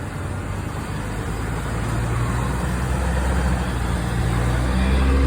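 Fire apparatus engine running with a steady low hum, growing louder throughout as the vehicle draws closer.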